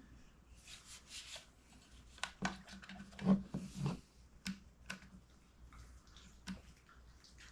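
Handling of a new plastic RC boat controller just out of its packaging: a soft rustle, then a run of small clicks and knocks as it is turned over and handled.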